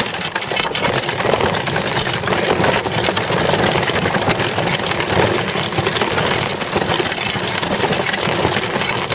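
Child's bicycle rolling over rough, cracked asphalt: a steady tyre-on-road roar with constant small clicks and rattles from the bike.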